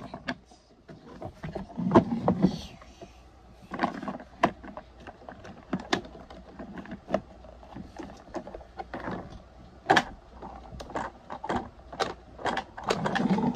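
Irregular hard plastic clicks and knocks from a Mighty Fleet Titans toy garbage truck and a small plastic toy trash can being handled, as the can is set on the truck's lift arm and the arm is worked by hand.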